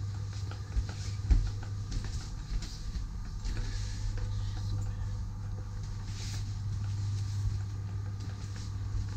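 Steady low hum of a motor yacht's onboard machinery heard inside the cabins, with a couple of soft thumps about a second in.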